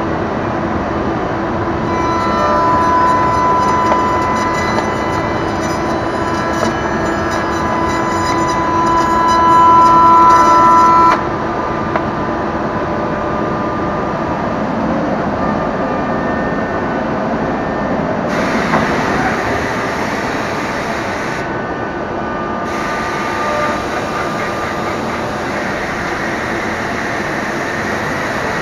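Biesse Rover A 5-axis CNC router machining wood: a steady high whine that grows louder and cuts off sharply about eleven seconds in, followed by a rougher, hissier running noise from about eighteen seconds.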